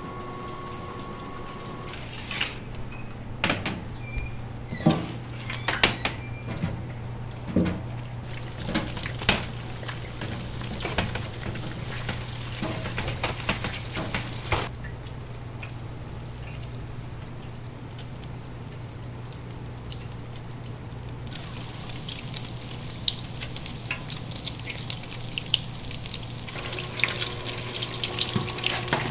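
Kitchen work sounds over a steady low hum: scattered clicks and knocks of utensils and equipment, then a steady hiss with many small crackles from about two-thirds of the way in.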